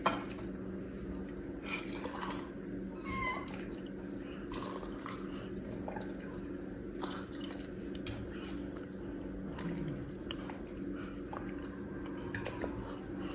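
Tea dripping and trickling into a cup: scattered faint drips and light clicks over a steady low hum.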